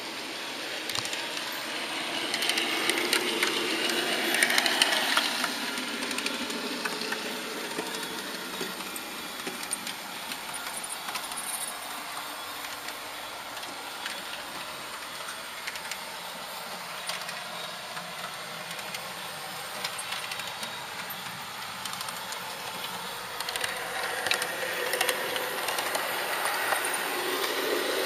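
HO-gauge model train rattling along its track, with irregular small clicks from the wheels over the rails; the running noise swells for a few seconds near the start and again near the end.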